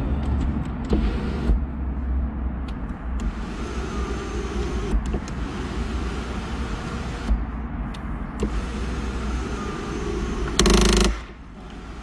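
Volkswagen Tiguan's power sunroof motor running with a faint whine as the glass panel moves, over a steady low rumble. About ten and a half seconds in, a loud half-second burst of noise cuts across it.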